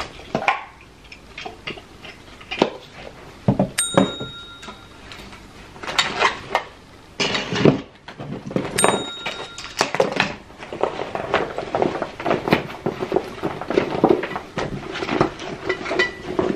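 Small belongings being handled and packed into a fabric backpack: rustling, light knocks and thumps, with two short ringing metallic clinks about four and nine seconds in.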